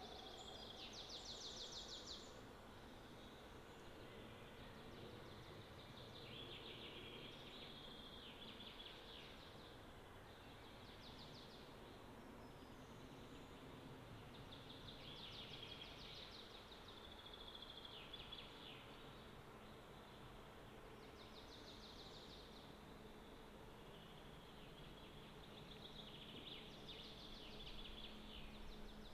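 Faint outdoor ambience: short, high, trilled phrases of about two seconds repeat every few seconds over a low, even hiss.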